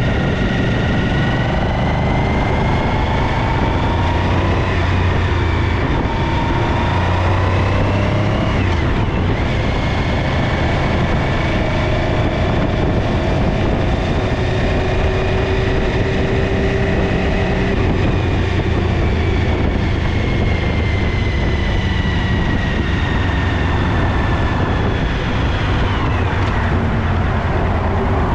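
A motor vehicle running steadily, with a whining tone that climbs slowly and then drops sharply twice: about nine seconds in and near the end.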